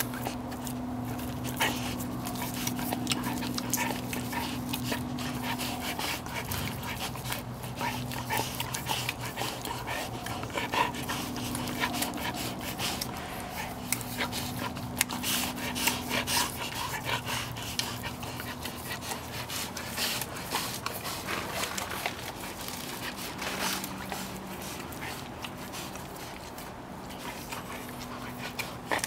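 Siberian husky licking a rubber-nubbed tongue-cleaning brush: repeated wet licks and smacks, with panting. A steady low hum runs behind it.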